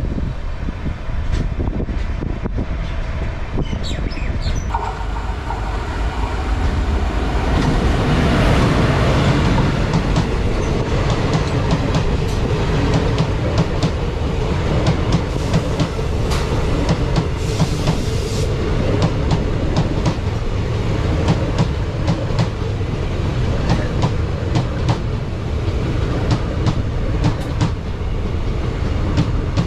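Passenger train running at speed, wheels giving a clickety-clack over the rail joints. About eight seconds in it grows louder as a train of passenger coaches passes close on the next track, its wheels adding a fast, continuous clatter.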